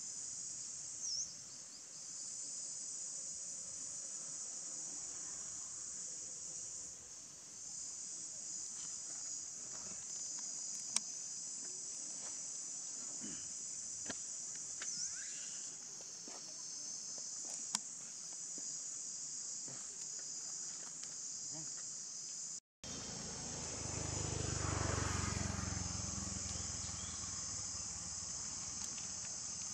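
Steady, high-pitched insect chorus chirring continuously in the forest. It cuts out for an instant about three-quarters of the way through, after which a low rumble swells for a few seconds under the insects, with a few faint clicks scattered through.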